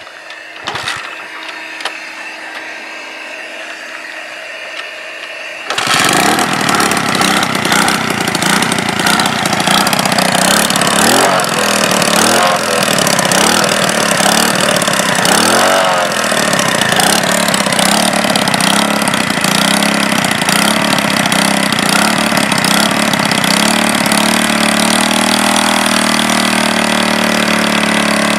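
A steady whir, then about six seconds in the moped's small engine, running on charcoal producer gas, catches and keeps running. Its revs rise and fall unevenly several times before it settles into a steadier idle near the end.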